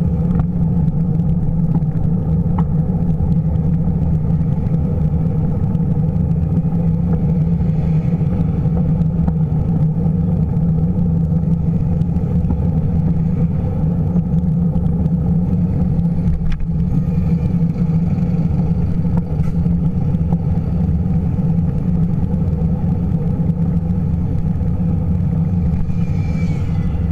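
Steady, loud wind rumble on the microphone of a bike-mounted camera while cycling along at an even pace.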